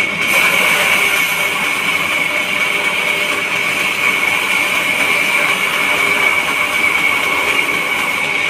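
Sawmill saw running with a steady, high-pitched whine over a noisy mechanical rush.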